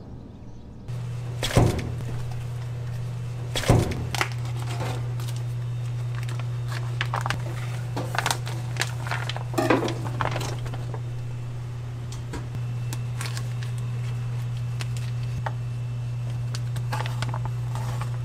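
Vacuum-sealed plastic bags of raw pork handled in a stainless steel tray: plastic rustling and crinkling, with two loud thuds in the first few seconds, over a steady low hum.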